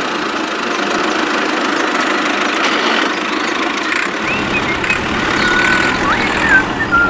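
A toy tractor pulling a trailer over sand, with a steady engine-like running sound. A low hum joins about four seconds in, and a few short bird chirps come near the end.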